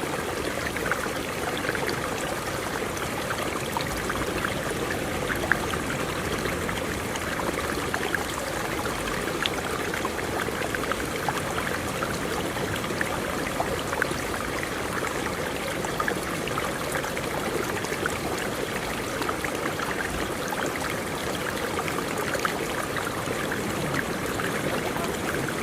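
Flowing water running steadily, like a stream, with small scattered ticks from the water.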